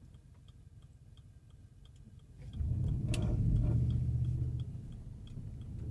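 Turn-signal indicator ticking steadily inside a pickup truck's cab, about two to three clicks a second. About two and a half seconds in, the truck's engine and true-dual exhaust rise to a low rumble as it pulls away; the exhaust has a leak where a broken bracket left a hole in a muffler.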